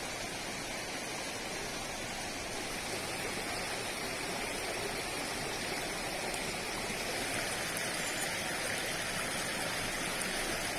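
Steady rushing of a mountain stream's water below a small waterfall.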